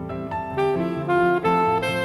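Jazz saxophone playing a moving melody of short notes over guitar and keyboard accompaniment, from a 1987 FM radio broadcast recorded on cassette tape.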